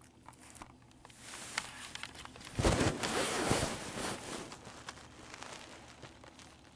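Plastic shrink-wrap being torn and crinkled off a Blu-ray case, with scattered clicks and a rustling burst loudest about three seconds in, fading after about five seconds.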